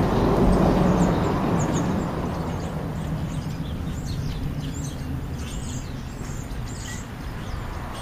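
A passing vehicle gives a low rumble that is loudest in the first second and fades away. Through it come many short, high chirps of small birds.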